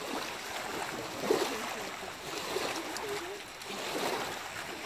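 Shallow lake water lapping and sloshing on a pebble shore as dogs wade through it.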